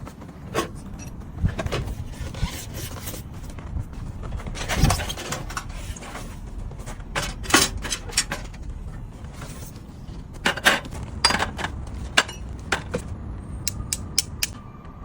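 A metal wood stove being unpacked and fitted together: irregular clicks and knocks over a steady low rumble.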